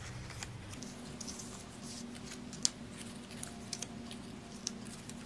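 Paper die-cut pieces handled and set down on a tabletop: soft rustling with a few light taps and clicks, the sharpest about two and a half seconds in, over a faint steady hum.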